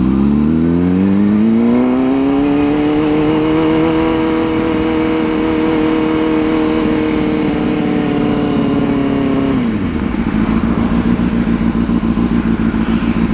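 Honda CBR600RR inline-four engine pulling up in pitch over the first couple of seconds, then running steadily, before dropping back to a low, pulsing idle about ten seconds in as the bike slows.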